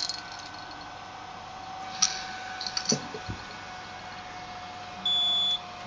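Fan of a PeRSo battery-powered air-purifying respirator running with a steady hum, pushing a good airflow through the hose, with a few light handling clicks. Near the end a single high beep sounds for about half a second and is the loudest thing here.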